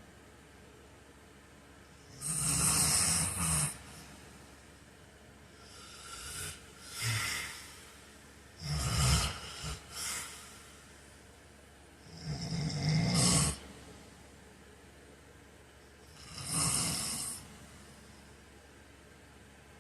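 A heavy-set man snoring in his sleep: five loud snores, each a second or two long, coming about every three and a half to four seconds.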